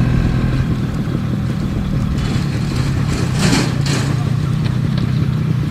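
Yamaha RX 135's single-cylinder two-stroke engine running at a steady pace while the motorcycle is ridden, with road and wind rush. There is a short hiss about three and a half seconds in.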